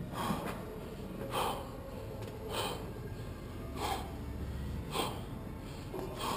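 A person breathing hard, with a sharp, noisy breath about every second and a bit.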